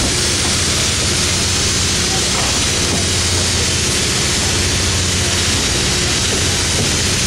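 Gillnet boat's engine running steadily on deck: a constant loud rumble with a hiss over it.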